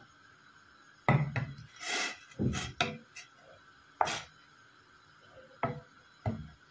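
Wooden slotted spatula stirring mint leaves in water in a stainless steel pot, knocking and scraping against the pot several times.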